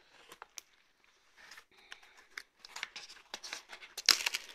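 Crinkling and crackling of a white mailing envelope being handled and squeezed by hand, in irregular bursts with the loudest crackle about four seconds in.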